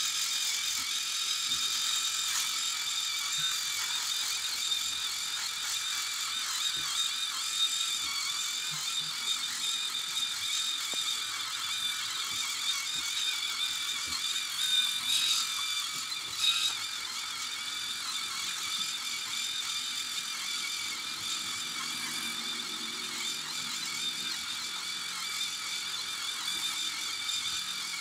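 Skull Shaver Pitbull Platinum Pro electric head shaver running as it is drawn over the scalp: a steady, high-pitched whirr with a couple of small clicks about halfway through.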